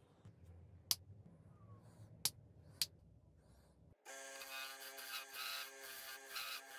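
Three short sharp knocks in the first three seconds, then, about four seconds in, a wood lathe starts to be heard, running with a steady hum while a turning tool scrapes and cuts the spinning ash handle of a walnut mallet.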